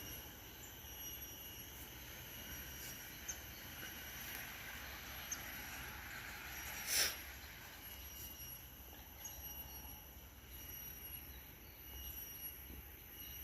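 Faint outdoor ambience: a steady high-pitched drone over a low background rumble, with a short loud rushing noise about seven seconds in.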